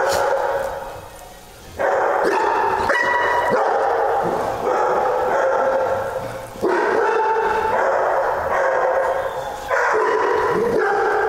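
Several dogs barking in a near-continuous chorus, with brief lulls about a second in and again just past six seconds.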